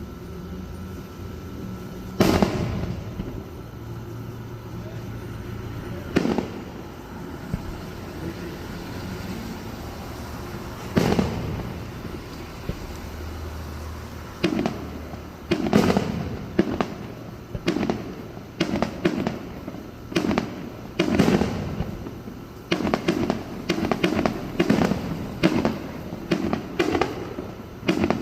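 Fireworks exploding: a few single bangs several seconds apart, then the bangs come faster and faster in the second half, building to a rapid string of bursts near the end.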